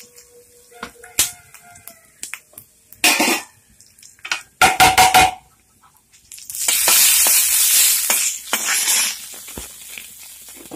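Dried red chillies frying in hot coconut oil in a metal kadai for a tempering. A spatula knocks and scrapes against the pan, with a quick run of strokes near the middle. About six and a half seconds in, a loud sizzle rises and lasts a couple of seconds before dying down.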